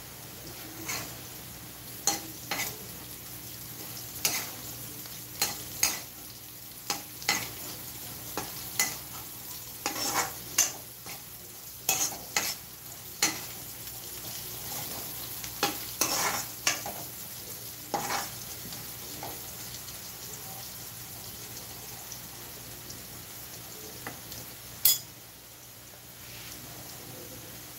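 Bitter gourd slices sizzling in oil in a kadai while a steel spoon stirs them. The spoon clinks and scrapes against the pan in a quick run of strikes over the first two-thirds, then gives one last sharp clink near the end.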